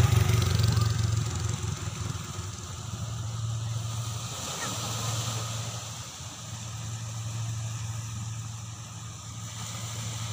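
Small waves washing on a sandy, rocky shore, under a steady low rumble that dips briefly twice near the middle.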